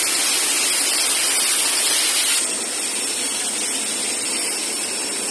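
CNC cutting torch hissing steadily as it cuts a bevelled opening in steel. About two and a half seconds in, the hiss changes abruptly, becoming thinner and a little quieter.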